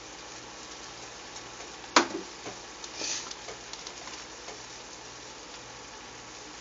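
A pan of asparagus in garlic sauce sizzling faintly over low heat. One sharp knock comes about two seconds in, and a brief louder hiss follows about a second later.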